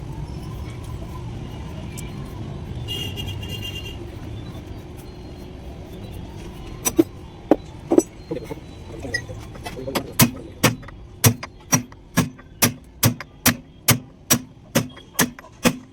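A steady low workshop rumble, then sharp metal-on-metal hammer blows starting about seven seconds in. They come sparsely at first and from about ten seconds in settle into a steady rhythm of about two blows a second.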